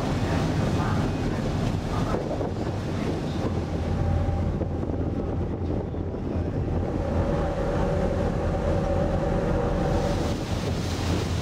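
Wind buffeting the microphone on the open deck of a Caledonian MacBrayne car ferry under way, over the steady low drone of the ship's engines and the wash of water along the hull. A faint steady hum joins in through the middle stretch.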